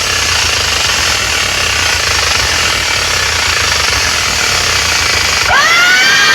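DJ loudspeaker rig playing a sound-check track: a rapid, jackhammer-like pulsing bass under a steady hiss. About five and a half seconds in the bass drops out and a siren-like synth sweep rises in several tones, then holds.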